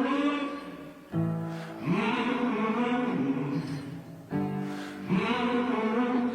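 Background music: sung vocals holding long notes, alternating with steady held chords.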